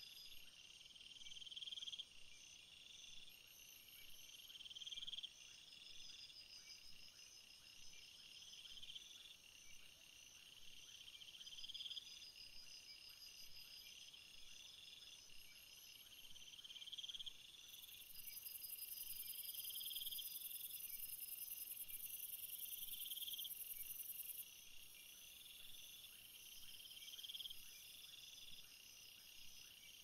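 Faint chorus of crickets and other insects trilling in a summer field. One insect repeats a swelling trill about every two seconds over higher, fainter trills, and a higher, steady buzz joins for about six seconds past the middle, then stops.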